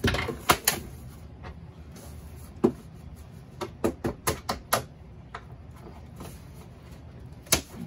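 Sharp clicks and knocks of a screwdriver and cardboard as a packing box is slit open: a few in the first second, one on its own about two and a half seconds in, a quick run of five or six around four seconds, and one more near the end.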